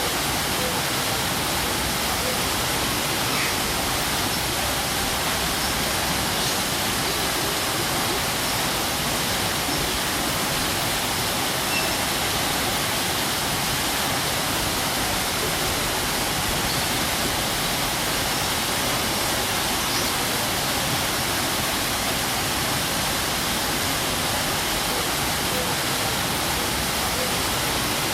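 Waterfall running: a steady, even rush of falling water that does not change in level.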